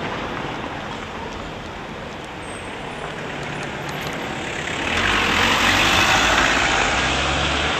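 Outdoor street noise, then a motor vehicle passes close by from about five seconds in, its engine rumble and tyre noise becoming the loudest sound.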